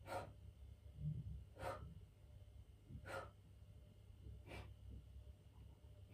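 A man's short, sharp breaths out under exertion, about one every second and a half, while he strains to hold a V-sit core position.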